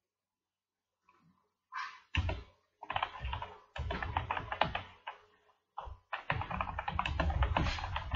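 Typing on a computer keyboard: quick runs of key clicks with short pauses between them, starting after a brief silence about two seconds in.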